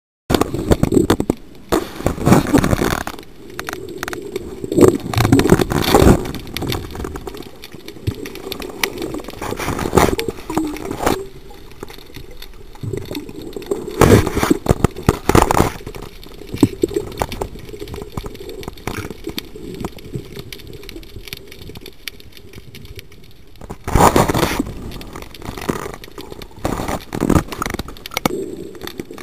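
Muffled water noise picked up by an underwater camera's microphone, with irregular swishing swells and knocks as the camera moves through the water.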